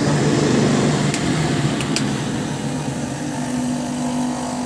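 Electric shoe-finishing machine running steadily, with the rubber sole of a sneaker sanded against its abrasive drum at the start and a few light clicks in the middle. About three seconds in, a steadier motor hum from a bench grinder with a metal cone bit takes over.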